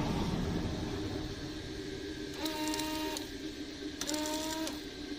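Small 12-volt electric water pump, switched on twice for under a second each, whining as it pushes water out of the nozzle at the front bumper. A steady low hum runs underneath.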